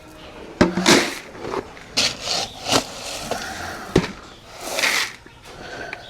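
Irregular knocks and scrapes, about five sharp knocks over a few seconds, with short bursts of rustling between them.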